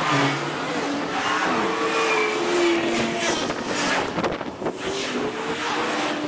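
Road traffic passing close by: a bus going past at the start, a lorry about four seconds in and a car near the end, with steady engine tones over the noise of tyres.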